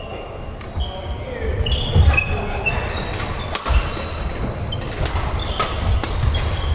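Badminton doubles rally: sharp clicks of rackets striking the shuttlecock, short high squeaks of shoes on the court floor, and thuds of footsteps, echoing in a large sports hall.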